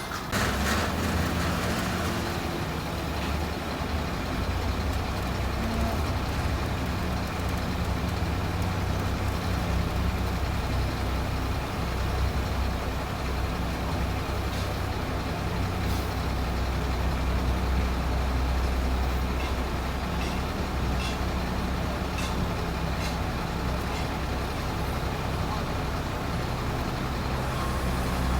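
Bulldozer's diesel engine running steadily with a low drone, with sharp clicks now and then.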